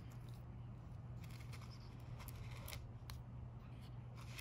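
Faint handling noise: scattered light clicks and soft rustles over a steady low hum.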